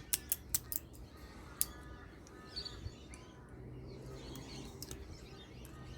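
Several sharp clicks and taps of hand tools on metal as a stuck scrap part is worked loose, most of them in the first second and one more a little later, with faint short calls in the background.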